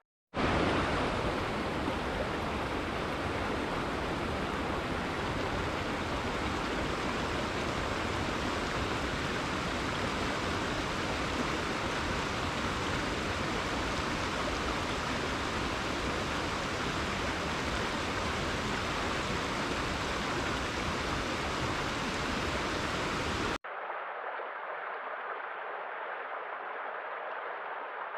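Steady rushing water, an even hiss with no distinct wave surges. About three quarters of the way through it cuts abruptly to a quieter, duller water recording.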